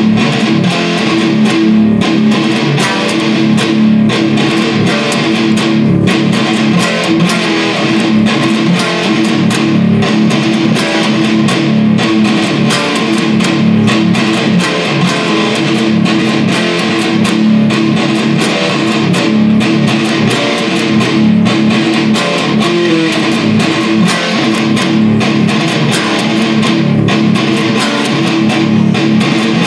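Electric guitar, tuned down a whole step to D standard, played continuously through a chord riff at an even loudness.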